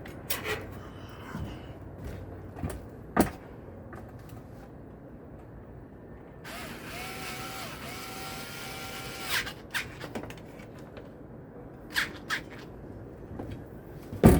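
Cordless drill/driver running for about three seconds in the middle, driving a fan-blade screw, with a brief dip in speed partway through. Before and after it come sharp clicks and knocks of hardware and blade handling.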